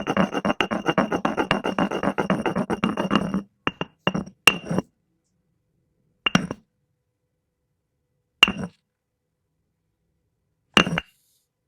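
Rapid clinking and scraping of a utensil against a glass container while hair gel is stirred into slime, with a steady ringing from the glass. About three and a half seconds in it stops, and then single clinks follow about every two seconds.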